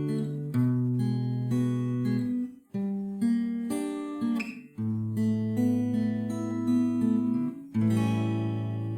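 Acoustic guitar strumming the introduction of a song, the chord changing every couple of seconds.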